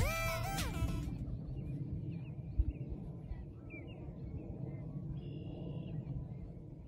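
Background music ends about a second in, leaving outdoor ambience: a steady low rumble of wind on the microphone, with faint short high chirps scattered through it.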